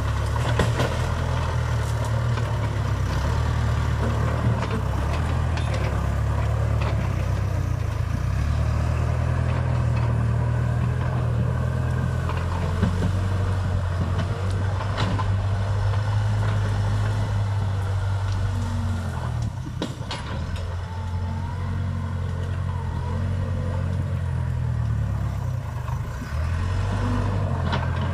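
Case Super K backhoe loader's diesel engine running steadily under working load, its note shifting as the machine backs out of brush and pushes forward, easing off about twenty seconds in. A few brief clicks and knocks sound over it.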